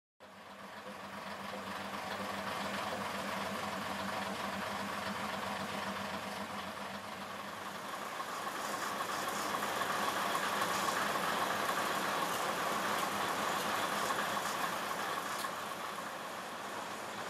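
Engines of the Kiha 702 and Kiha 303 diesel railcars idling at a standstill, a steady hum that fades in over the first couple of seconds.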